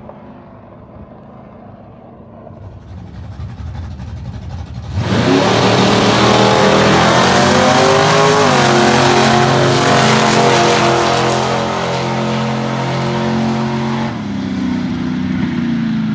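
Drag car's small-block Chevy 355 V8 launching at full throttle about five seconds in, revving up, shifting once about three seconds later, holding wide open down the strip, then lifting off near the end.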